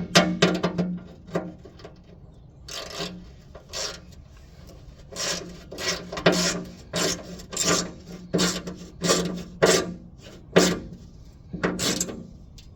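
A 10 mm ratchet wrench tightening the mounting bolts of a hydraulic cooling fan, in a series of short rasping ratchet strokes, about one or two a second with brief pauses.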